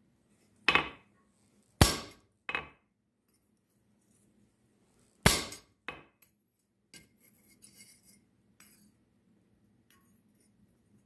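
Blacksmith's hammer striking steel: five sharp, ringing blows in two uneven groups, followed by lighter metal clinks.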